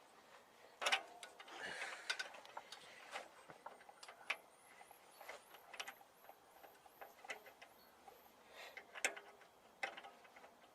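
Light, irregular metallic clicks and taps, the sharpest about a second in, with a short scrape around two seconds in: a steel C-spanner being fitted to and levered on the spring-preload adjuster collar of a Harley-Davidson Street 750's rear shock.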